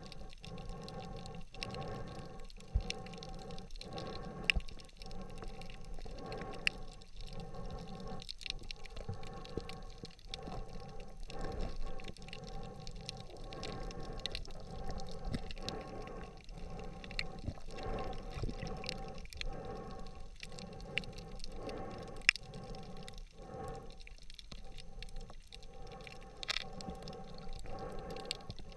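Muffled underwater noise picked up by an action camera sealed in a waterproof housing: a steady hiss with a low hum, and a few sharp clicks, one about three seconds in, one about four and a half seconds in, and the loudest about twenty-two seconds in.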